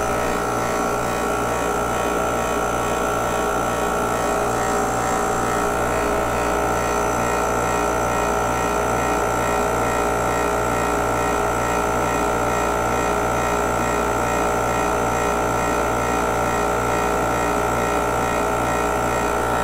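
Mastercool 69110 refrigerant recovery machine running, its compressor giving a steady hum with an even, rapid pulse as it draws refrigerant out of a car's AC system into the recovery tank.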